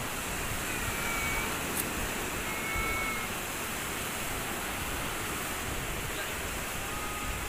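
Steady rushing surf on a beach, with a few faint short high tones now and then.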